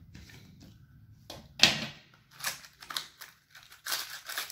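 Crinkling and tearing of a foil wrapper and a small cardboard box being opened by hand, in a string of short rustles, the loudest about a second and a half in.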